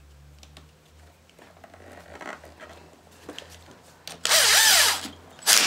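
Cordless drill running down the nut on a starter solenoid terminal: faint handling clicks, then about four seconds in the motor runs for about a second with a wavering whine, and it gives a second short burst near the end.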